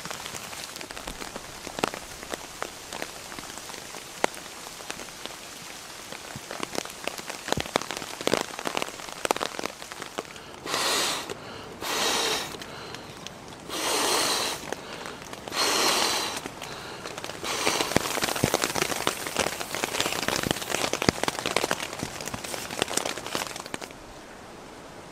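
Raindrops pattering on a tent's flysheet and the surrounding woodland, a dense run of small ticks. In the middle come four short rasping noises, and near the end the patter gives way to a steady rushing hiss.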